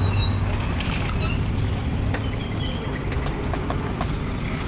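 Small motor scooter engine idling with a steady low hum, over street noise with a few light clicks.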